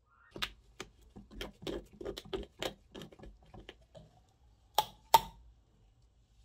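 Small metal parts clicking and tapping as they are handled: an uneven run of about four light clicks a second, then two sharper metallic clinks a third of a second apart near the end, the second one ringing briefly.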